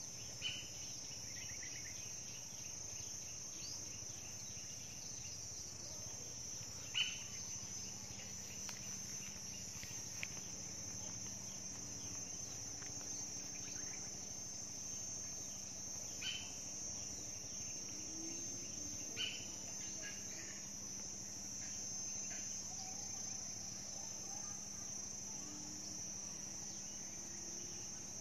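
Steady high-pitched insect chorus, with a few brief bird chirps scattered through it.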